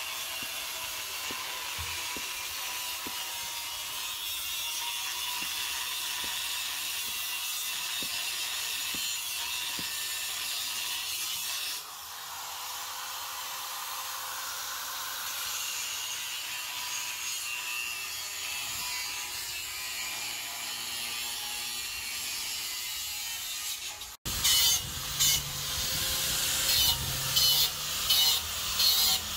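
Work on a galvanized steel well pipe: a steady high hiss with a few faint knocks, then, near the end, an angle grinder run in short loud on-off bursts against the pipe.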